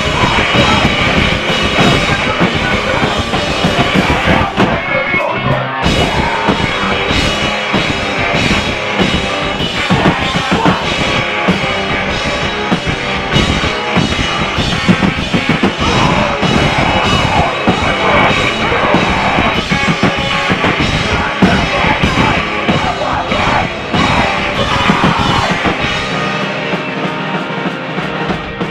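Live rock band playing loudly in a small room: electric guitars, bass and a drum kit.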